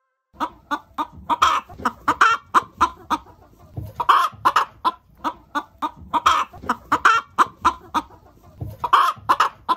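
Chicken clucking: a run of short clucks, several a second, with louder, drawn-out calls every second or two.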